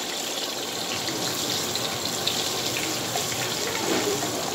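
Chopped onion sizzling in hot oil in a deep frying pan: a steady hiss with small crackles.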